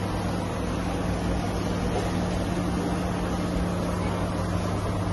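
A steady low machine hum over a constant rushing background, unchanging throughout, with no distinct events.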